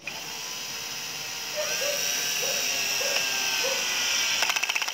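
Bosch GSB 120-LI cordless drill/driver running in its low speed range, its motor whining steadily as it drives a screw into wood. About four and a half seconds in, it changes to a fast, even ratcheting: the torque clutch slipping as the screw stops going in at the lowest torque setting.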